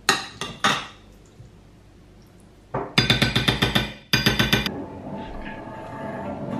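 Metal spoon scraping and knocking against a ceramic bowl and a glass dish as casserole is served, with a dense run of rapid clinking about three seconds in.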